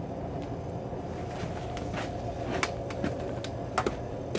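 Interior of an O-Train diesel passenger railcar running through a tunnel: a steady low rumble with a faint steady whine over it. A few sharp clicks and rattles come through from about a second and a half in, the loudest near the end.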